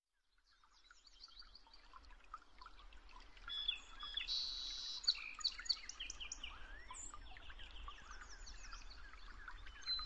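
Many songbirds singing and chirping at once in a morning chorus, fading in from silence about half a second in.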